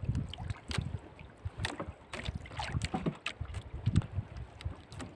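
Sea water lapping against a small outrigger canoe's hull, with wind buffeting the microphone and scattered light knocks and taps.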